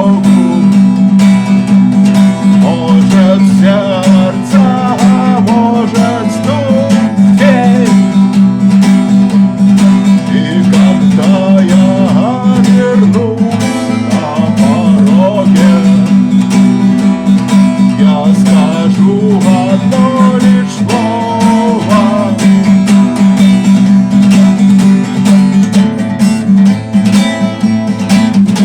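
Instrumental outro of a song: strummed acoustic guitar with a wavering melody line over it and no sung words.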